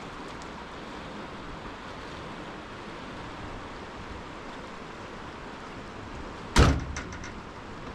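Steady rush of river water, with one sharp knock about six and a half seconds in, followed by a few fainter clicks.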